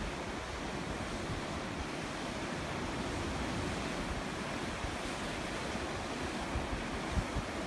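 Sea waves washing on the shore in a steady wash of surf, with wind buffeting the microphone in low gusts.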